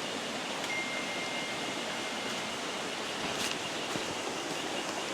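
River water flowing, a steady, even wash of noise.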